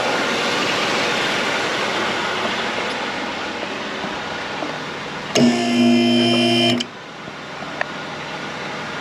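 A steady, even running noise, then about five seconds in a car horn sounds once for about a second and a half. The background noise drops when the horn stops.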